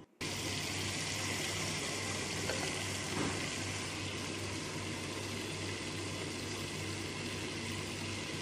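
Mutton curry sizzling and bubbling in a pan on the stove: a steady hiss that starts abruptly, with a steady low hum underneath and a few faint ticks.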